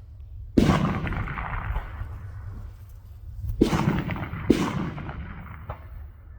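Three rifle shots fired in target practice: one about half a second in, then two more close together, under a second apart, past the middle, each trailing off in a long echoing rumble. A steady low rumble runs underneath.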